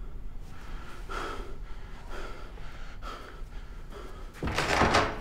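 A man's agitated breathing: short, faint breaths about once a second, then a louder, longer rushing noise about four and a half seconds in.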